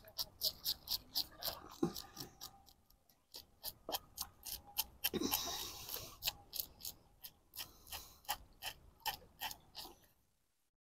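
Scales being scraped off a whiting with a hand scaler: quick, repeated rasping strokes at about five a second, with a short break about three seconds in.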